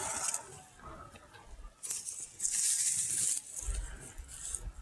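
Hands rustling and scraping through loose soil and dry plant matter while digging potatoes out by hand, in a few bursts, the longest about two seconds in.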